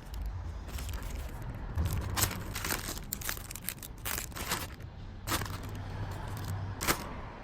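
Irregular crinkling and rustling, as of packaging being handled, with two sharp clicks in the second half.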